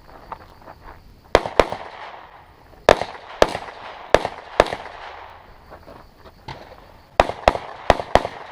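Handgun shots fired in quick pairs: about ten sharp, loud shots, mostly in twos a quarter to half a second apart, the double taps of a practical-shooting course of fire, with a pause of a couple of seconds before the last four. Fainter pops lie between them.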